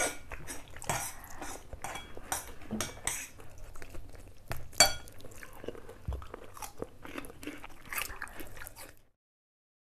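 Close-miked mukbang eating: two people chewing and biting into spicy Samyang noodles and a chicken leg, with many irregular sharp clicks and crunches, the loudest about five seconds in. The sound cuts off abruptly near the end.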